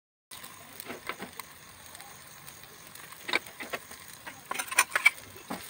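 Steel spoon clicking and scraping against a non-stick appam pan while frying appe are turned, a few sharp taps at a time, over a faint steady sizzle of oil.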